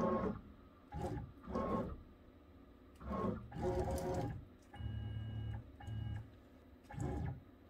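CNC router's stepper motors whining through a series of short jogging moves: about seven stop-start bursts of a second or less, as the spindle is moved along the part to the other end for probing.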